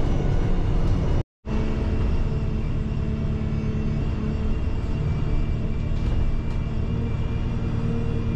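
Interior noise of a bus on the move: a steady low rumble of engine and road with a constant hum. The sound cuts out completely for a moment just over a second in, then resumes unchanged.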